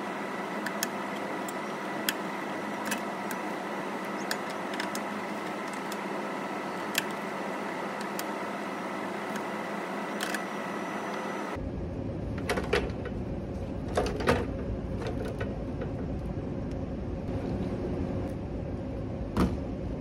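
Scattered metal clicks and clinks of hand tools working the melted fused disconnect switch loose inside its steel box, over a steady hum of running rooftop HVAC equipment. About eleven seconds in, the hum gives way to a deeper rumble, and the louder clinks come after that.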